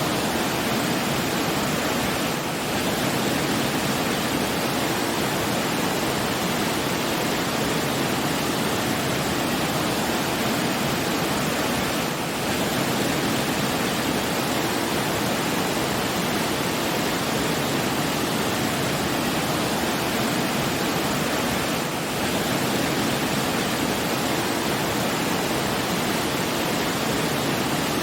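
Steady rushing of running water, like a waterfall or fast stream, an even unbroken hiss with no other sounds; it dips very slightly and briefly three times.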